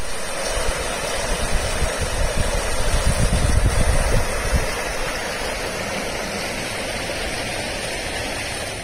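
Wind buffeting the microphone over a steady rushing outdoor noise. The buffeting is heaviest about two to four and a half seconds in.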